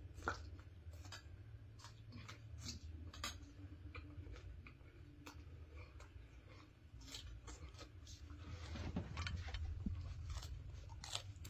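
A person chewing raw chili peppers: faint, irregular crunches and clicks, over a low steady hum.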